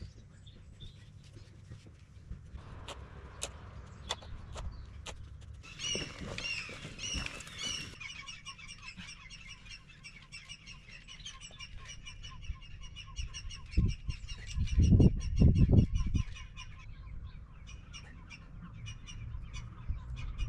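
Small birds chirping in fast, repeated high notes. There are a few sharp clicks in the first few seconds, and a cluster of loud low thumps about three-quarters of the way through.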